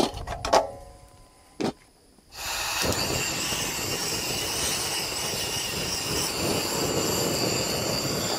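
Portable gas camp stove burner running at full flame with a steady roar under a saucepan, starting suddenly about two and a half seconds in. Before it, a few light clinks of the pot and its lid, one with a short metallic ring.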